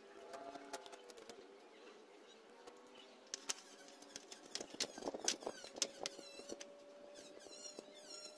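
Light clicks and taps of thin bamboo strips being handled and laid against each other on a plywood board, busiest in the middle. Quick high chirps come in near the end.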